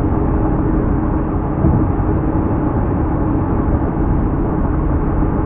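Steady road and engine noise heard from inside a car's cabin while it drives at freeway speed, an even rumble with a faint constant hum.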